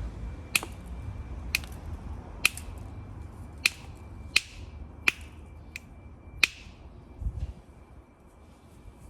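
Flint knapping: a hammerstone or billet striking a flint piece in about eight sharp, ringing clicks, roughly one a second, stopping after six and a half seconds. A dull low thump follows near the end.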